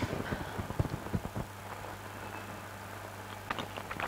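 Someone biting into and chewing a steamed chicken momo: a run of soft, wet clicks and smacks in the first second and a half, a few more near the end, over a steady low electrical hum.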